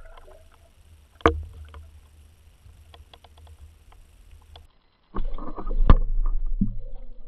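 Water heard from under the surface through a submerged camera: a sharp knock about a second in, then low muffled churning, and a louder turbulent rush with a heavy thud from about five seconds in as the camera is jostled.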